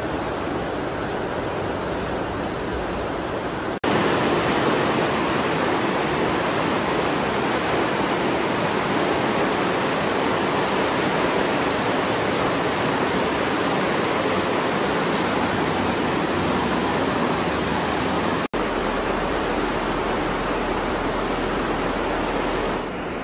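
Rushing water, a steady even rush, that gets louder about four seconds in and breaks off for an instant near 18 seconds.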